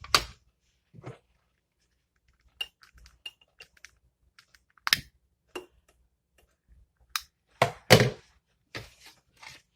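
Clicks and knocks from the smoke alarm and other small hard objects being handled, loudest as a double knock about eight seconds in, with a few faint, very short high beeps from the smoke alarm.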